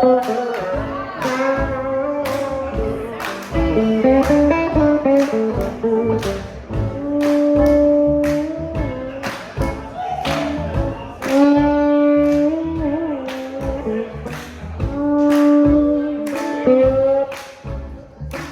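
Live band music: drums keeping a steady beat under guitar and a melody of long held, bending notes.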